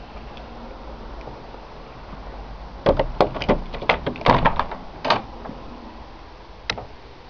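Wooden shed door with a metal slide bolt being unbolted and pulled open: a quick run of metallic clicks and wooden knocks between about three and five seconds in, then a single click near the end.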